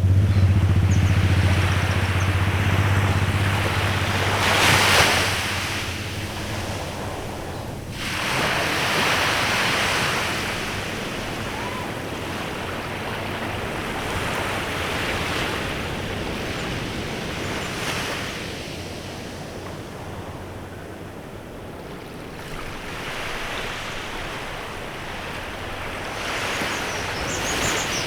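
Small waves breaking and washing up on a beach, swelling and ebbing every several seconds. A low engine hum fades out in the first few seconds, and faint bird chirps come in near the end.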